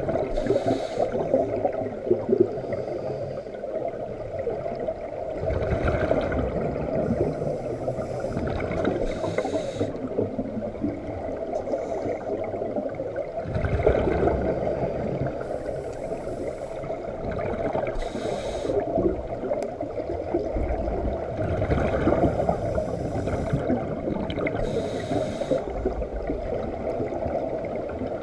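Scuba regulator breathing underwater: bursts of gurgling exhaled bubbles about every three to four seconds over a steady underwater rush.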